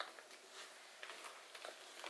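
Near silence with faint rustling and a few light ticks from a small leather handbag being handled.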